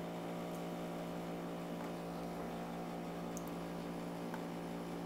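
A steady low electrical hum, a mains-type buzz in the recording chain, with one faint click about three and a half seconds in.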